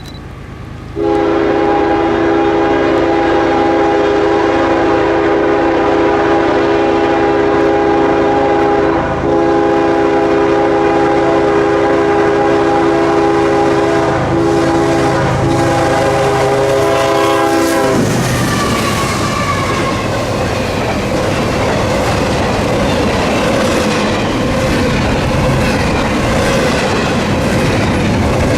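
A freight locomotive's multi-note air horn blows a long, loud chord, with a short break about eight seconds in and a couple of quick breaks later. The horn cuts off about 18 seconds in, and the train rolls past with a rumble and rhythmic clacking of wheels over rail joints.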